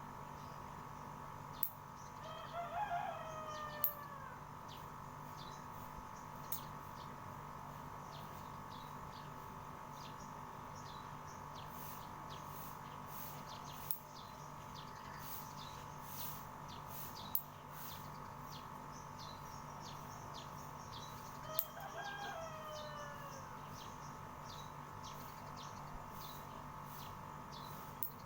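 Birds at a rooftop feeding spot: two long calls falling in pitch, about twenty seconds apart, over many short sharp chirps or clicks. A steady hum runs underneath.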